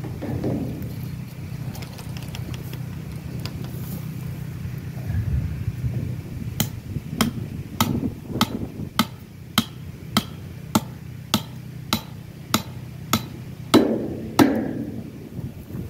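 Hand-held silcrete stone hammering a metal pipe fitting on a galvanized stock tank. About fourteen sharp taps come evenly, a little over half a second apart, starting about six seconds in, and the last two are heavier with a short ring.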